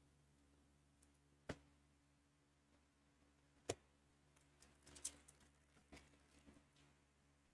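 Near silence broken by a few faint clicks and crinkles from hands handling trading cards, a plastic penny sleeve and a foil card pack wrapper: single ticks about a second and a half in and near the middle, then a small cluster a little after five seconds.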